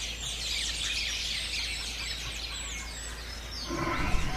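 A chorus of small birds chirping, with many quick downward-sliding chirps overlapping. Near the end a rougher, lower noise comes in under them.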